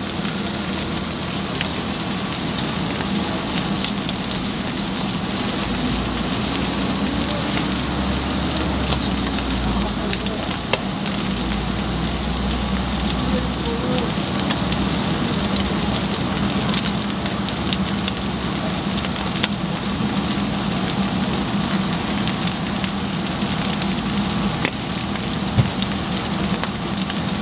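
Gopchang (intestines) frying on a flat iron griddle: a steady sizzle with scattered small pops. A low steady hum runs underneath.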